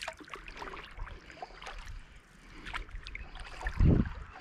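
Water lapping and dripping around a stand-up paddleboard, with scattered small clicks and splashes, and a dull low thump near the end, the loudest sound.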